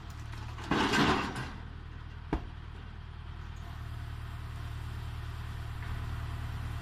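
A machine's engine idling steadily with a low hum. There is a short rush of noise about a second in and a single sharp knock a little after two seconds.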